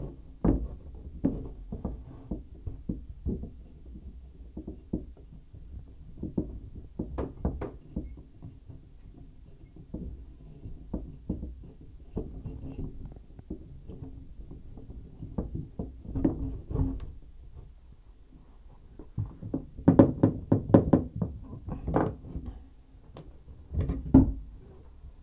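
Hand working through the access hole of a tub surround, cleaning copper pipe ends with an abrasive pad: irregular knocks, thumps and rubbing against the pipes and the hollow surround. A quick cluster of sharp knocks comes about twenty seconds in.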